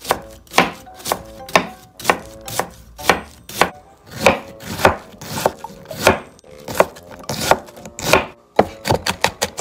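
Chef's knife mincing an onion on a plastic cutting board: steady chopping strokes about two a second, turning quicker near the end.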